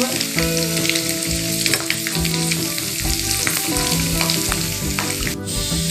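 Hot oil sizzling and bubbling as batter-coated potato vadas (batata vada) deep-fry in a pan. A slotted spoon turns them, clicking against the pan a few times.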